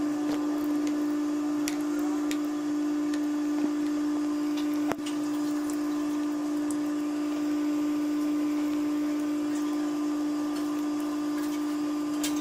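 A steady machine hum at one constant pitch, with a few light clicks and one sharper tap about five seconds in.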